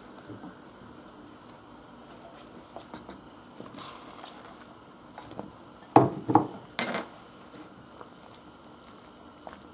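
Garlic soup boiling steadily in a stainless steel pot while slices of bread are laid in and moved about with a wooden spoon, with a few light clicks midway and three sharp knocks of the spoon against the pot about six to seven seconds in.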